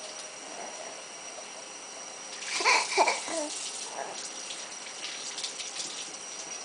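Tap water running into a kitchen sink as dishes are washed, with light clinks of dishes. About two and a half seconds in, a baby babbles briefly.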